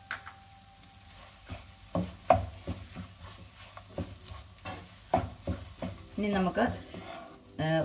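A spatula stirring soya chunks around a non-stick frying pan: repeated scrapes and knocks against the pan over light sizzling.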